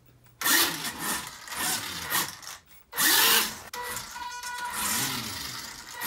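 Carrera Red Bull NX2 1:18 battery-powered RC buggy's electric motor and gears whining as it is driven in several short bursts across a laminate floor. The pitch rises and falls with the throttle, and the loudest burst comes a little after three seconds in.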